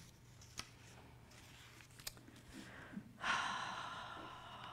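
A few faint clicks, then about three seconds in a person's breath out near the microphone: a sudden sigh that fades over about a second and a half.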